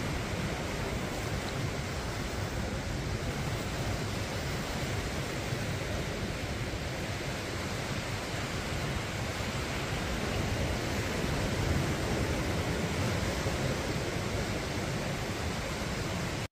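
Ocean surf breaking and washing up the beach: a steady, even rush with no separate events.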